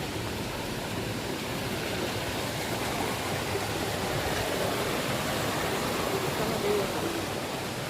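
Bamni waterfall: a steady rush of falling, splashing water.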